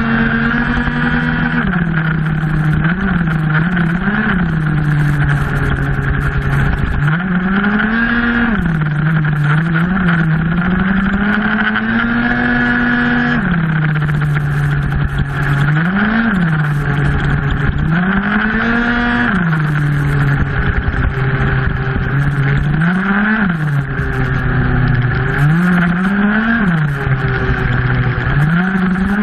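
Tuned two-stroke racing scooter engine heard onboard, revving up hard on the straights and dropping back for the corners, over and over, between about 8,000 and 14,000 rpm, over a steady rushing noise.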